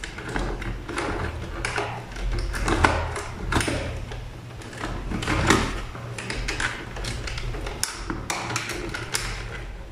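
Irregular clicks, taps and rustles of hands handling and connecting electrical wires at the terminals of a wiring board, over a steady low hum.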